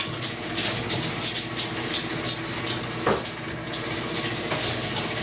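Microwave oven running with a steady hum, with irregular light clicks and knocks over it and one louder knock about three seconds in.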